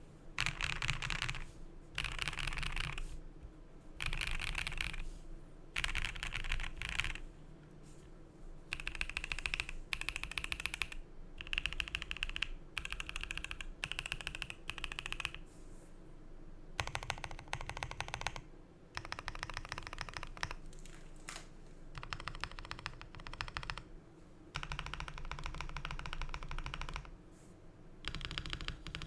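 Typing on a Keychron Q3 Pro mechanical keyboard with pre-lubed WS Morandi linear switches, a polycarbonate plate, lubed stabilizers and GMK keycaps. The keystrokes come in quick runs of one to two seconds, with short pauses between them.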